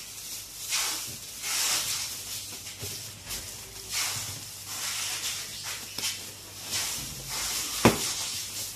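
Plastic bags rustling and crinkling in repeated bursts as they are handled and pushed down into a cardboard box, with one sharp click near the end.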